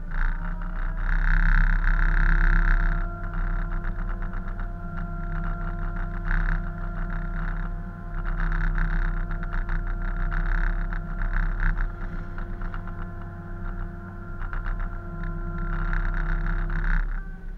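Loud machinery noise: a steady mechanical whine over a deep rumble, with heavy rattling that swells and eases. It starts suddenly and cuts off shortly before the end.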